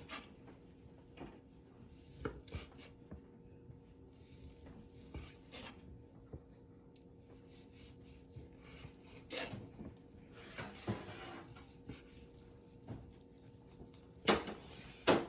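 Knife slicing a cooked A5 wagyu steak on a wooden cutting board: scattered taps of the blade on the board, a stretch of sawing about ten seconds in, and two louder knocks near the end, over a faint steady hum.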